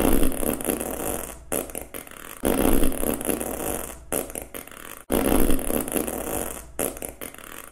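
Cartoon sound effect: about six long, noisy blasts, each broken off by a short gap.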